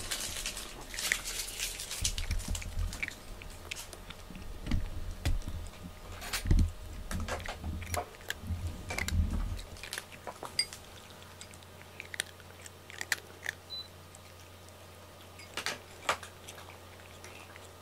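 Domestic cat crunching dry kibble from a ceramic bowl: a quick, irregular run of small crunches, thinning out to scattered crunches after about ten seconds.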